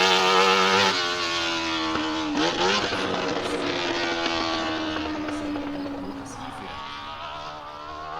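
A racing engine running at high revs, its pitch shifting a few times, growing gradually fainter as it moves away.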